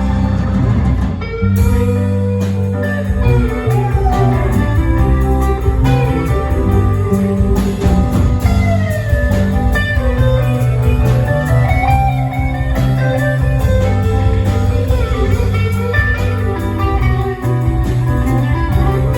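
Live rock band playing a bluesy tune: an electric guitar lead with bending, sliding notes over steady bass and drums.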